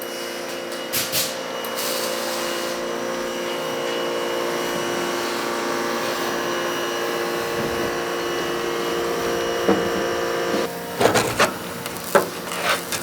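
An electric motor running at a steady speed with a constant hum, stopping about three-quarters of the way through, followed by a few sharp knocks and clatters.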